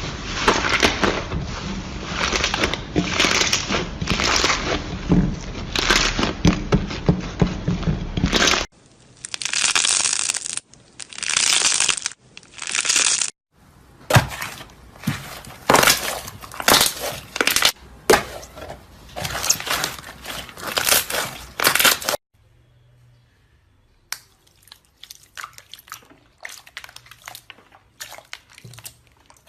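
Slime being squeezed, pressed and poked by hand, giving a dense run of crackling, popping clicks. The sound changes abruptly about 9, 13 and 22 seconds in, and the last part is much quieter.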